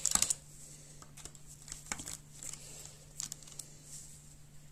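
Small screwdriver working a tiny screw out of a Dell Latitude E7240's rear bracket: a quick cluster of clicks at the start, then scattered faint ticks and scrapes as the screw turns.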